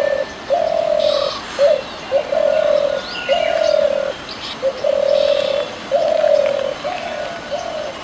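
Spotted dove cooing: a run of low coos at about one a second, longer held notes with short clipped ones between. Other birds chirp faintly in the background.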